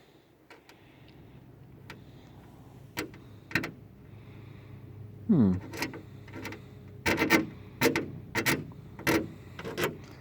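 A short falling creak, then a run of sharp metallic clicks and clunks about every half second, as a new bonnet latch and catch on a Vauxhall Nova are worked by hand. The latch doesn't quite want to pull down.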